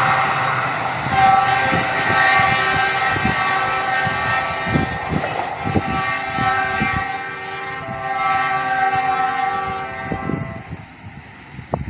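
Train horn sounding a long, loud chord in several held blasts with short breaks, over the rumble and thudding clatter of the moving train; the horn stops about ten and a half seconds in.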